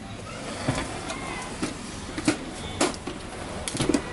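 Plastic clicks and knocks as the front bezel of a flat-screen TV is handled and pried loose from the panel, about one every second, with a quick cluster near the end.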